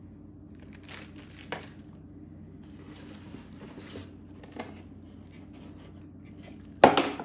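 Plastic bubble-wrap bag crinkling and a cardboard box rustling as they are handled, in faint scattered rustles, with a much louder burst of crinkling near the end.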